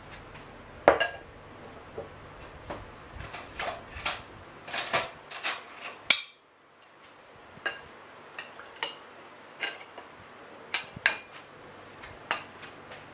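Tableware clinking on a table: a ceramic plate and a glass tumbler set down and handled, making a run of sharp clinks and knocks, some with a short ring. There is a brief hush about six seconds in.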